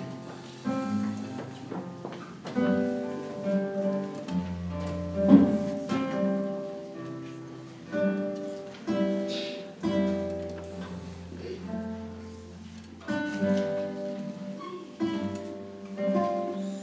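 Two nylon-string classical guitars playing a duet: plucked melody notes and chords over low bass notes, with one sharp, loud attack about five seconds in.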